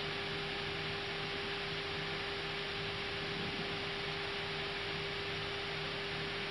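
Airbus A320 cockpit audio between radio calls: a steady hiss with a steady hum running through it, unchanging throughout.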